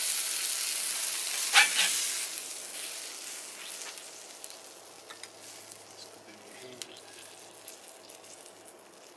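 Smashed burger patty sizzling on a hot griddle plate over charcoal. About a second and a half in there is a short, sharp scrape as the patty is lifted off, and the sizzle then fades away.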